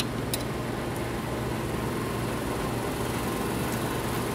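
Steady background hum and hiss of room tone, with one light click just after the start.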